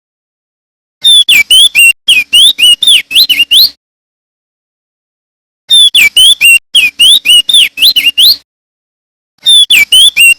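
Male crested darkeye (opior jambul) singing loud, clear song: three phrases of quick whistled notes that swoop up and down, each phrase about two and a half seconds long with short silences between. The last phrase starts near the end.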